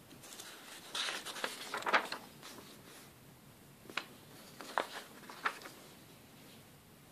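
Paper instruction booklet pages being turned and handled: a rustle of paper around a second in, then a few short crisp paper snaps.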